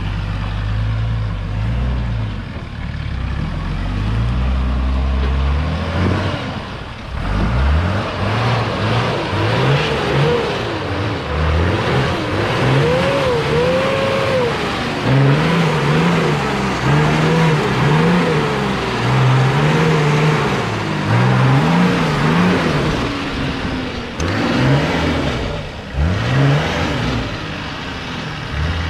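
Nissan GQ Patrol's turbocharged TD42 diesel six climbing a rutted gully. It runs steadily at first, then from about six seconds in it is revved up and down again and again as the truck crawls and flexes over the ruts.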